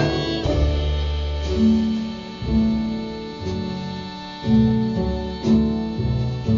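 Instrumental music from a live jazz band: sustained chords over a bass line that moves to a new note about once a second.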